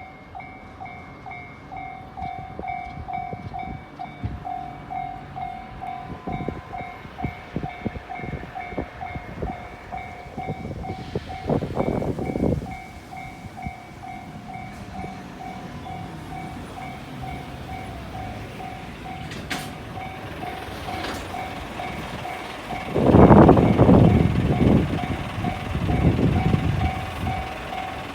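Japanese level-crossing alarm ringing its steady, pulsing ding throughout, while a freight train of an EF65 electric locomotive and tank cars passes, wheels clacking over the rail joints. Loud rushes of train noise come about halfway through and again near the end.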